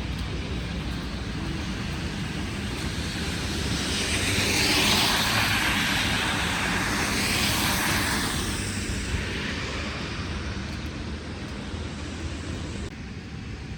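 A vehicle passing on a snowy city street: a broad hiss of tyre and traffic noise swells over a few seconds, peaks twice, and fades away over a low steady city hum.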